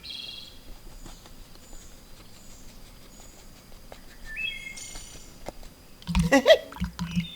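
Outdoor background with songbirds chirping: a short high chirp at the start and a brief stepped phrase about four seconds in. About six seconds in come a few loud knocks and a short pitched sound.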